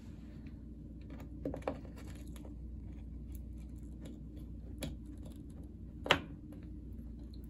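A few light clicks and taps of a ceramic wall tile being set and pressed into thinset among the neighbouring tiles, two close together about one and a half seconds in and the sharpest about six seconds in, over a faint steady hum.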